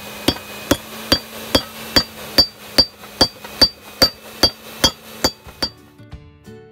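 Hammer blows on a red-hot copper blank held in tongs on the anvil of a steel bench vise: a steady run of about two and a half ringing strikes a second, stopping about a second before the end.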